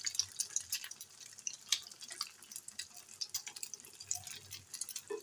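Egg-coated shami kababs deep-frying in hot oil in a pan: the oil sizzles with a dense, irregular crackling and popping.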